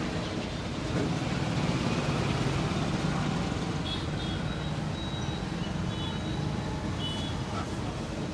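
Street traffic: a motor vehicle running close by, a steady low rumble that grows a little louder about a second in, with a few faint short high beeps.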